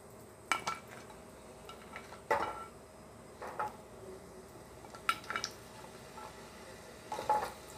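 A spatula clinking and scraping against a glass bowl and a frying pan as sliced carrots are scooped into the pan: a handful of short, sharp clinks at irregular intervals.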